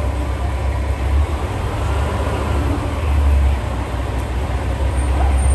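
KiRo 47 diesel railcar running as it departs, a steady low rumble.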